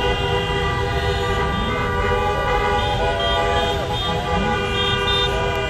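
Many car horns blaring together in long, steady, overlapping blasts: celebratory honking from a line of cars, with traffic noise and a few shouts.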